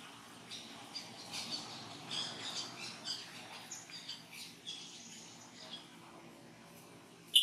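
Baby macaque giving a run of short, high-pitched squeaks and chirps, irregular and densest in the first half. A sudden loud high-pitched tone cuts in at the very end.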